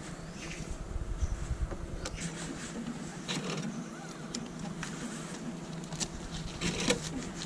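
Cash machine counting out and dispensing banknotes, its mechanism whirring with several sharp clicks, as the notes are taken and handled. A low rumble in the first two seconds.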